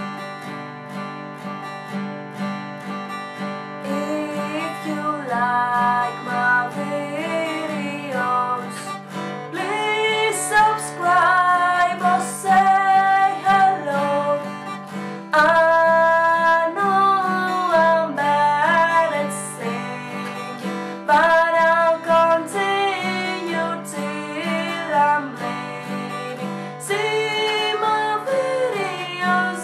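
Acoustic guitar strummed with a pick; about four seconds in, a woman starts singing a melody over it.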